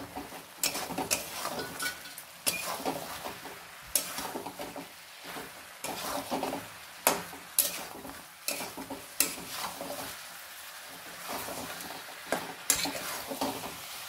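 Metal spatula scraping and knocking against a wok in irregular strokes as chicken pieces are stirred through freshly added masala, over a steady sizzle of frying.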